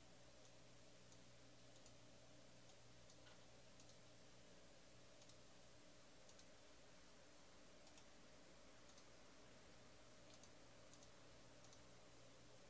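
Near silence: faint, scattered clicks of a computer keyboard and mouse, often in quick pairs, over a low steady hum.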